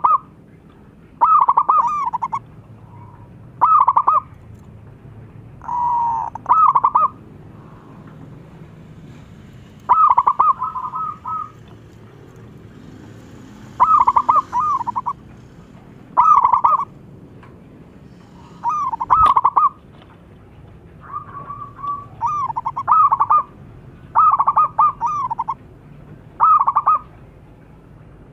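Zebra dove (perkutut) cooing: a dozen or so short phrases of rapid, staccato coo notes, repeated roughly every two seconds.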